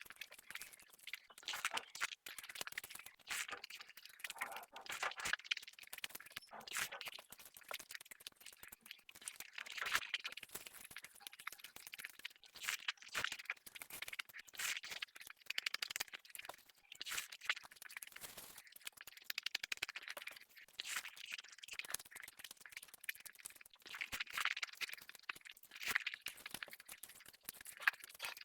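Close-miked eating: irregular wet clicks and crackles of chewing and mouth sounds going on throughout.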